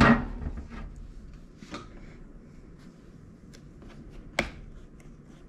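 Sharp plastic clicks and knocks from the string trimmer's plastic throttle handle and housing being handled and fitted: a loud click at the start, a lighter one about two seconds in, and another loud click just past four seconds, with a few faint ticks between.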